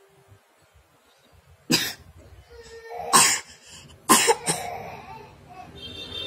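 A young child coughing about four times, short sharp coughs a second or so apart.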